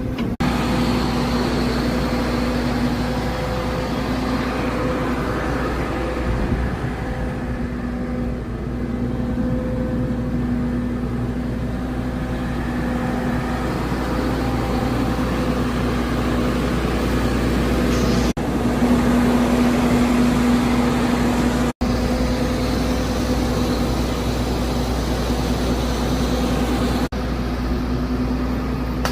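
A vehicle engine running steadily with a constant low hum, broken off abruptly a few times.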